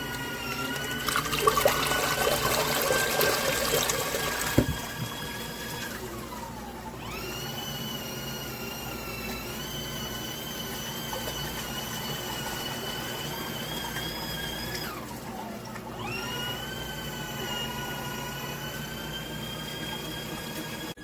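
Portable mini washing machine running: a steady electric motor whine with water sloshing, loudest in the first few seconds with a thump at about 4.5 s. The motor winds down and starts up again twice, about 6 and 15 seconds in, as the wash cycle pauses and restarts.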